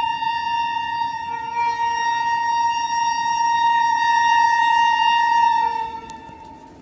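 Twin-tone air horn of an Indian Railways WAG-9HC electric locomotive sounding one long continuous blast. A second note joins the first about a second in, and the horn stops near the end.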